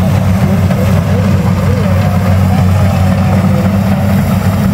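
Rice combine harvester's engine running with a steady low drone, with faint voices in the background.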